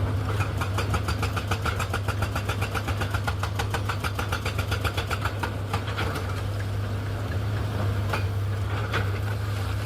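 Heavy machine's diesel engine running with a steady low hum, overlaid by a rapid, even clatter of about seven knocks a second that stops about halfway through, followed by a few single knocks.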